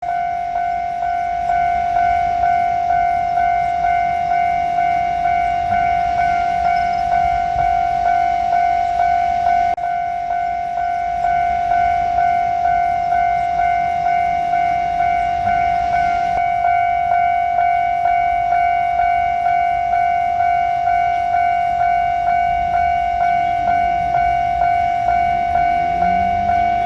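Japanese level-crossing warning bell ringing on and on, a clanging tone struck about one and a half times a second. Near the end a rising whine from an approaching train comes in underneath.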